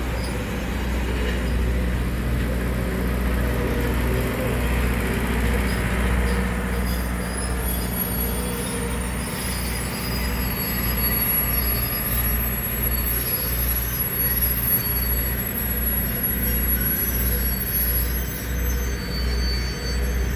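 Passenger train of stainless-steel coaches rolling slowly past, a steady low rumble of wheels on rail that takes on a regular pulsing beat in the second half. Faint high-pitched wheel squeal joins in about seven seconds in.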